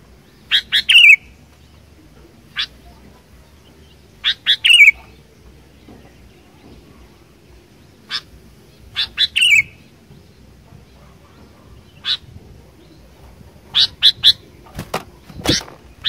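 Sooty-headed bulbul singing: short bright phrases of a few quick notes ending in a falling slur, repeated about every four seconds, with single short notes between them.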